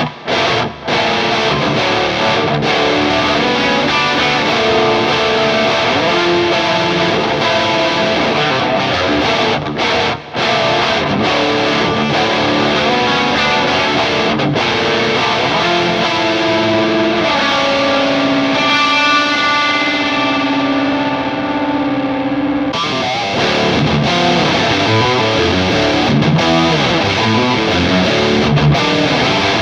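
Electric guitar played through the SideFx Triamp prototype preamp pedal with a distorted tone, a run of riffs and single notes. About two-thirds through a chord is held and left ringing, and after it the tone turns brighter.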